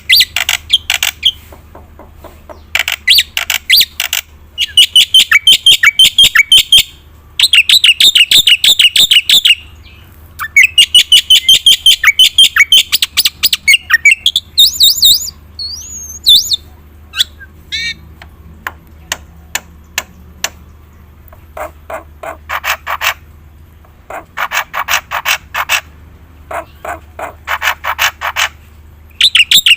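Black-winged myna (jalak putih) singing in long bouts of rapid, harsh chattering notes, one after another. Near the middle there is a whistled glide and a run of sharp single clicks before the chattering picks up again.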